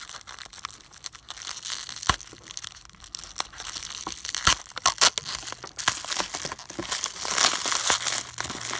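Bubble wrap being crinkled and pulled open by hand to unwrap a small plastic toy: a dense crackle with sharp clicks scattered through it, busiest near the end.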